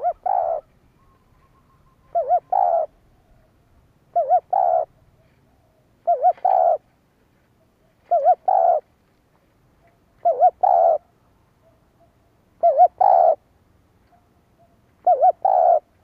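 Spotted dove cooing: a three-note phrase, two short notes and then a longer one, repeated eight times about every two seconds.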